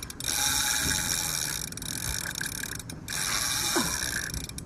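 Fishing reel drag buzzing steadily as a hooked tarpon runs and pulls line off the reel.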